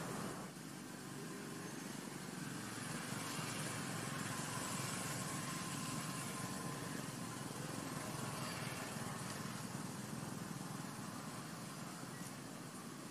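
Steady outdoor background noise, a low hum with hiss, with no distinct events.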